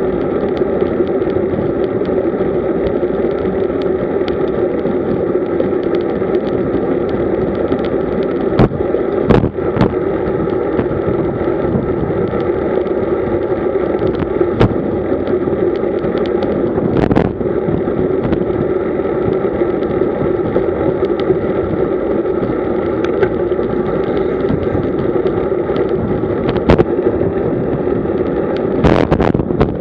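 Steady wind rush and road noise on an action camera mounted on a road bike at about 40 km/h, broken by several short sharp knocks.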